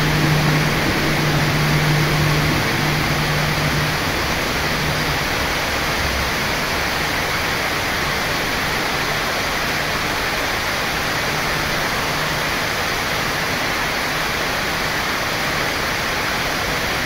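Heavy rain falling as a steady hiss. Under it, the low hum of a KfW i9000 electric multiple unit pulling in is heard over the first few seconds, fading out, then returning faintly for a while.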